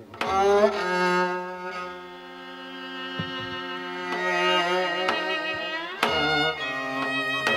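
Bowed strings playing long, wavering held notes in a Korean folk-song arrangement, with a new phrase entering sharply about six seconds in.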